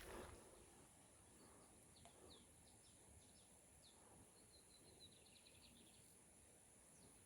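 Faint birdsong in the open: scattered short high chirps, then a quick run of repeated notes about five seconds in, over a steady high hiss. A soft rustle fades out at the very start.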